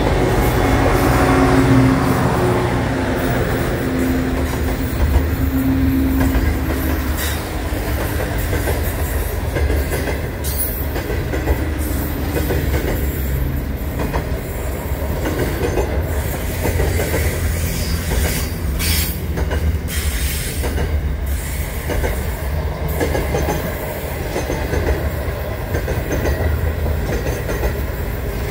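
Diesel locomotives of a freight train passing close by, their engine note falling in pitch over the first few seconds, followed by a long string of loaded container wagons rolling past with a steady rolling noise and repeated wheel clicks.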